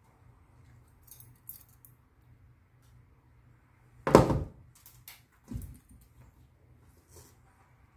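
Knocks and thumps on a plastic cutting board in a steel sink as a live Boston lobster, held down in a towel, is skewered through the tail and struggles. There is one loud knock about four seconds in, then a few softer ones.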